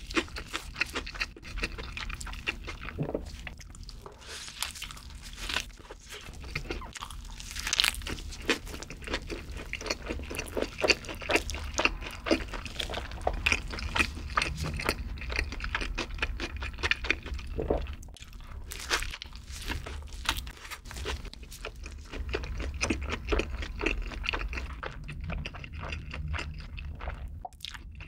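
Close-miked chewing of a mouthful of burger, with dense, irregular crunching throughout.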